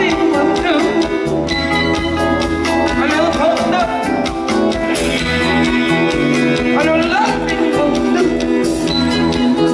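Live band playing a song with a steady beat: drum kit, bass guitar, electric guitar and congas, with a voice singing at moments.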